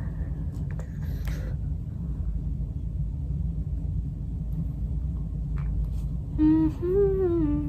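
A steady low rumble with a few faint clicks; about six seconds in, a woman hums a short wavering tune with her lips closed.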